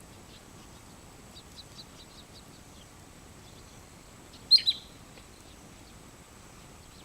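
Wood sandpiper calling: faint scattered high chirps, then a loud, quick double note about four and a half seconds in.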